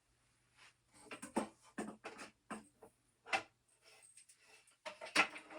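A run of irregular knocks, taps and clatters of objects being handled, loudest about five seconds in, over a faint steady hum.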